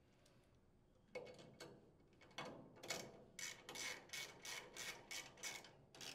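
Hand socket ratchet clicking faintly as the rocker cover screws are tightened. A few irregular strokes start about a second in, then a steady run of short bursts about three a second.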